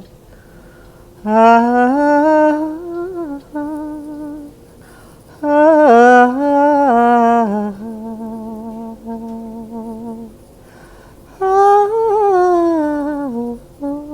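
A woman humming a slow, wordless improvised melody in three louder gliding phrases, with softer held notes between them.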